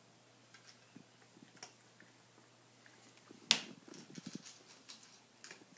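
A cat eating from a bowl: soft, scattered small clicks and chewing noises, with one sharp knock about three and a half seconds in.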